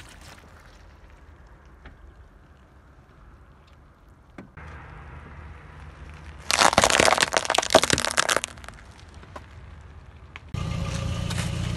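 Painted walnuts in a cardboard egg tray cracking and crunching under a car tyre: about two seconds of dense, loud crackling as the shells break and the tray is flattened. A steady low rumble of the car starts near the end.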